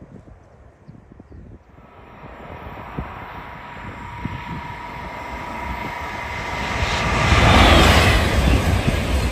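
A high-speed train approaching and rushing past, its noise building from about two seconds in to its loudest near the end. A steady high whine rides on the rush as it closes in.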